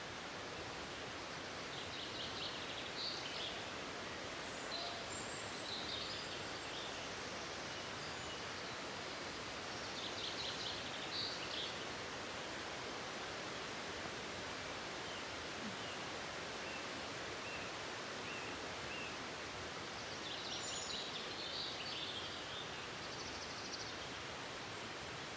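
Steady rushing of a waterfall, with small songbirds giving short high trills several times over it.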